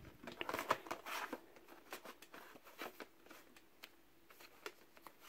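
Plastic DVD cases being handled, one slid back into a rack and another pulled out, giving faint, irregular clicks and rustles as the cases rub and knock against each other.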